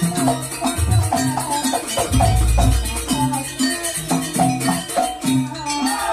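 Live jaranan ensemble music with a steady rhythm: short pitched percussion notes repeat as a melody over deep drum and gong strokes, with a constant high metallic jingling.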